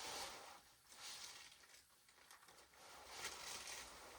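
Near silence with faint, brief rustling, as of packaging and the ceiling fan's plastic blades being handled.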